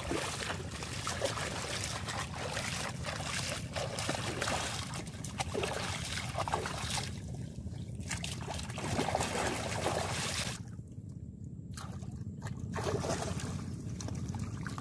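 Shallow seawater splashing and sloshing as hands scoop it up again and again to rinse mud off the legs, with a couple of brief lulls.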